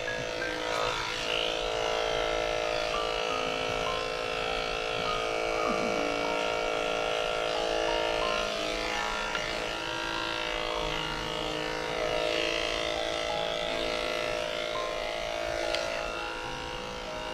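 Andis two-speed electric dog clippers running with a steady buzz as they shave a dog's coat.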